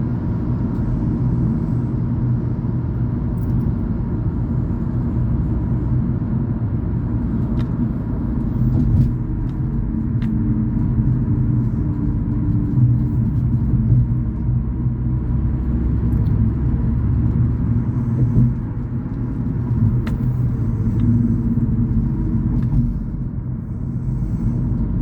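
Car driving: steady low rumble of the engine and tyres on the road, with a faint hum.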